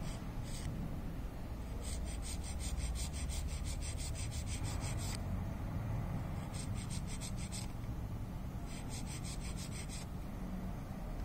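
Old hacksaw blade scraping out the gaps between a starter motor armature's copper commutator segments, in rapid back-and-forth strokes. The strokes come in three spells with short pauses between, the longest about three seconds, clearing accumulated debris that could short the segments together.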